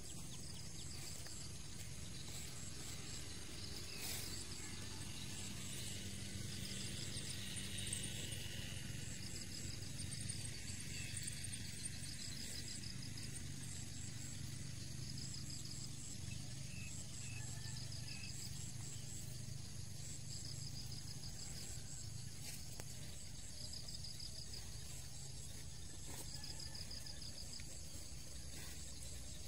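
Insects calling in repeated trains of rapid high-pitched pulses, over a low steady background hum of outdoor ambience.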